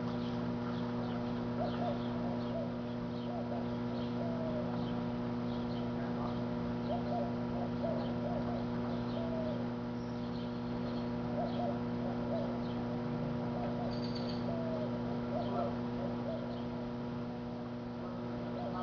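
Microwave oven running with a steady electrical hum, its load not arcing much. Short bird calls repeat over the hum every second or so.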